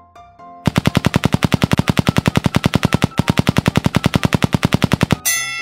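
Machine-gun-style sound effect: a rapid, even rattle of shots lasting about four and a half seconds, standing for the toy monster's flurry of punches pounding the toy fire bus. Near the end it cuts off into a ringing, bell-like ding.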